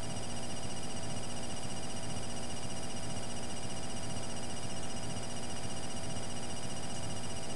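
Steady electrical hum and hiss with a faint buzzing pulse, unchanging throughout.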